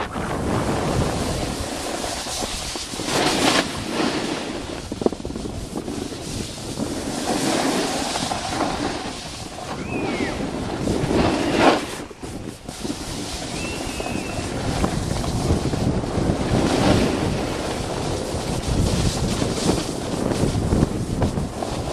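Wind buffeting the microphone while skiing downhill, with skis hissing over the snow, the rush surging louder a few times.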